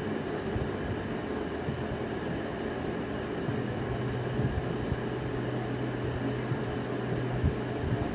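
A steady low mechanical hum, like a running appliance or fan, with a few soft low thumps scattered through it.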